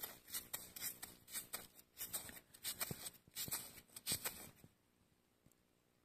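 Irregular rustling and scraping handling noises, a few a second, stopping about four and a half seconds in.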